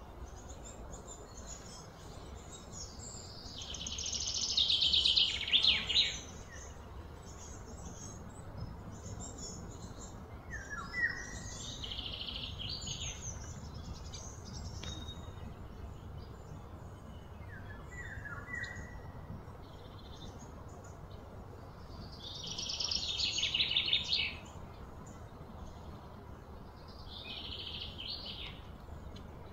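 Birds chirping and insects buzzing. Short chirps come several times, and two louder buzzing swells of a few seconds each rise and stop abruptly, a few seconds in and again about three-quarters through, over a low steady rumble.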